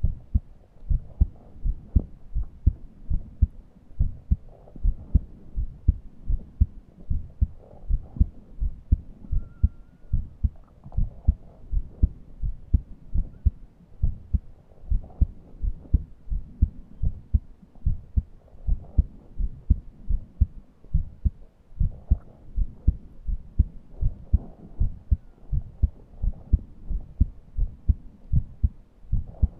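A person's heartbeat, steady fast lub-dub thumps running through, with soft breath sounds swelling every three or four seconds and a brief thin wheeze about ten seconds in: laboured breathing from a chest too tight to breathe deeply.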